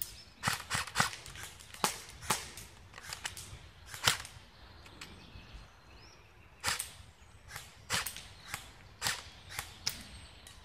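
Airsoft guns firing single shots: sharp, irregular cracks, some in quick pairs, with a pause of a second or so in the middle.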